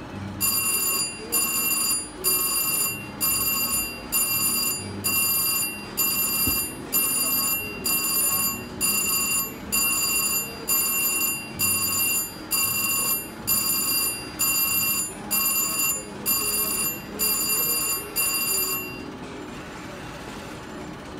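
VGT Mr. Money Bags slot machine's win alarm: a loud electronic ringing tone repeating about once a second, some seventeen times, then stopping near the end. It signals a winning line of BAR symbols on the payline.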